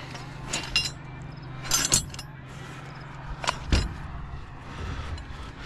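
Metal hand tools clinking in a carried tool bag and steps on a steel catwalk: a few sharp metallic clinks over a steady low hum.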